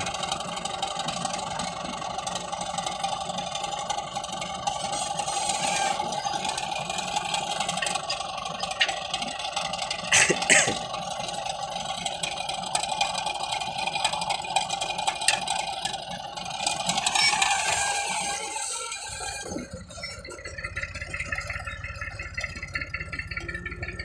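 Massey Ferguson 240 tractor's diesel engine running steadily, with metallic rattling and two sharp clinks about ten seconds in from the three-point hitch linkage being worked by hand. A few seconds before the end the engine sound turns to a lower rumble.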